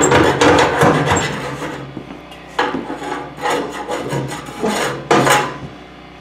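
A metal rod scraping and rasping against metal inside a wood cook stove's round flue outlet: a dense run of strokes over the first two seconds, then several separate scrapes.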